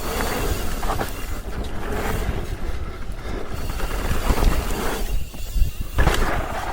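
Mountain bike ridden over a rough trail: steady tyre and frame rumble with wind on the microphone, and sharp knocks as the bike hits bumps, the loudest about six seconds in.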